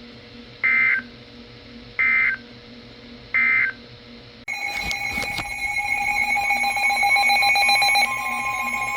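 Three short, warbling Emergency Alert System end-of-message data bursts, about 1.4 s apart, marking the close of the alert. About halfway through, a continuous buzzing alert tone made of several pitches begins and holds steady.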